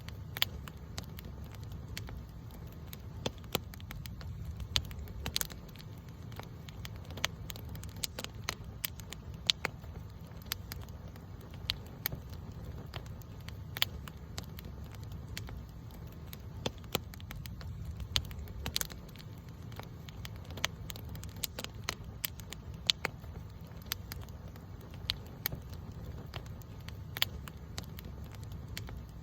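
Wood campfire burning with irregular sharp crackles and pops, several a second and a few louder snaps, over a steady low rumble of the flames.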